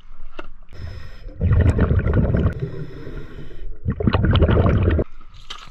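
Scuba diver breathing through a regulator underwater: two loud bursts of exhaled bubbles, about a second each and a couple of seconds apart, with a quieter hiss between them.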